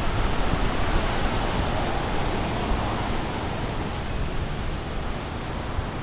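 Heavy Pacific surf breaking and churning over a rocky shore: a steady roar of waves, easing slightly toward the end.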